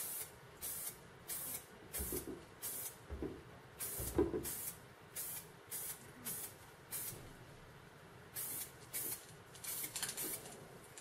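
Aerosol spray paint can spraying in short, quick bursts, about two a second, with a pause of about a second past the middle.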